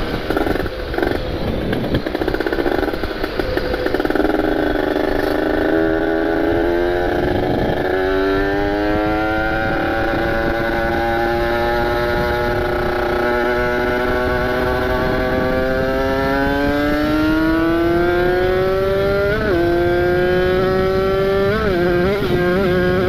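Kawasaki Ninja RR's ported two-stroke single-cylinder engine pulling under way, its pitch climbing slowly and steadily for about ten seconds. Near the end the pitch dips briefly twice.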